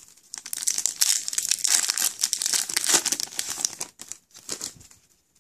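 Foil wrapper of an Upper Deck MVP hockey card pack being torn open and crinkled by hand: dense crackling for about three and a half seconds, then a few lighter crinkles that stop near the end.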